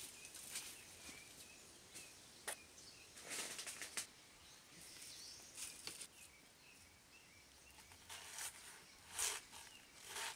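Scattered rustling and crunching of dry leaves and plant matter underfoot and by hand in a banana grove, in short bursts, with faint bird chirps in the background.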